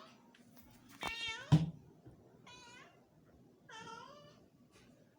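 Domestic cat meowing three times in short calls. A sharp thump lands at the end of the first meow.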